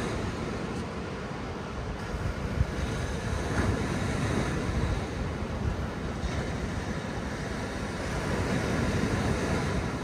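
Small waves breaking and washing up a sandy beach in a steady surf wash, with wind rumbling on the microphone.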